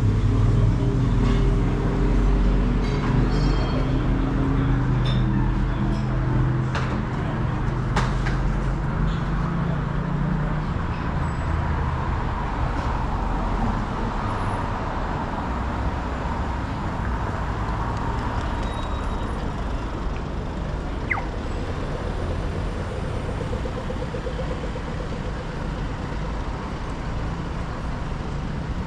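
Street traffic noise: a vehicle engine is loudest at the start and fades away over the first ten seconds, leaving a steady hum of passing road traffic, with a brief high chirp about two-thirds of the way through.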